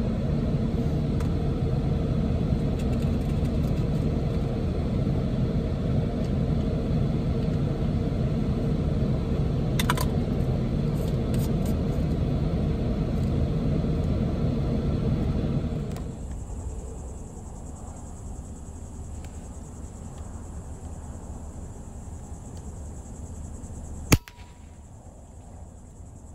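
Truck running with a steady low rumble that fades about two-thirds of the way through as the truck slows and goes quieter. A single sharp crack sounds near the end.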